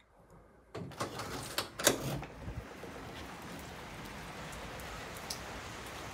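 A door's lever handle and lock clicking and knocking as the door is unlatched and pushed open, a few sharp clicks about a second in. It is followed by a steady hiss of outdoor background noise.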